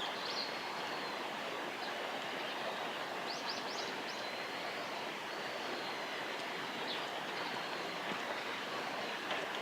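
Steady rushing background of a small river and the town around it, with a few thin, high bird calls; a quick run of three or four short rising chirps comes about three and a half seconds in.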